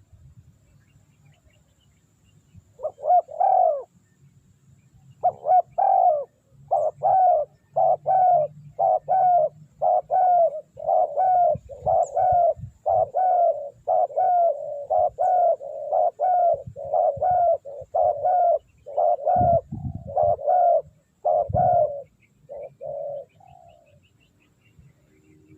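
Spotted dove cooing: a short phrase a few seconds in, then a long run of evenly spaced coos, about one and a half a second, that stops a couple of seconds before the end.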